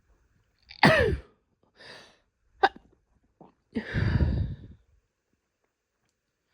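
A woman stifling a series of sneezes, with breaths between them. The loudest sneeze, about a second in, has a short voiced cry that falls in pitch. A quick sharp one follows, then a longer breathy one in the middle.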